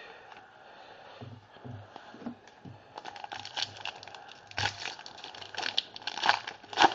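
Crinkling and tearing of a trading card pack wrapper as it is handled and ripped open. The sound is a run of short crackles that starts about three seconds in and is loudest near the end.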